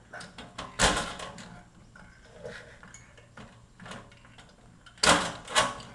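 Worn hand pop-rivet tool being squeezed to pull a blind rivet through aluminium sheet: a sharp metal clack about a second in, light clicks of the handles and jaws, then two more clacks half a second apart near the end.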